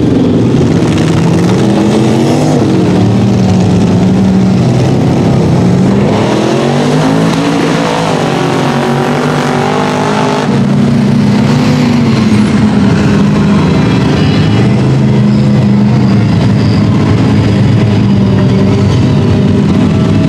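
Mega mud truck engines revving up and easing off as they push through a mud pit, with the pitch rising and falling several times before settling into a steadier high run in the second half.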